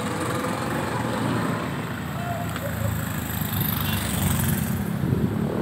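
Street traffic: a motor vehicle's engine rumble that builds in the second half, over a steady hum of street noise.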